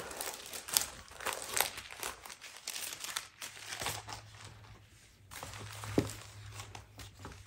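Tissue paper rustling and crinkling as it is folded back by hand inside a cardboard gift box, with a few sharper crackles. A low steady hum sits underneath from about halfway.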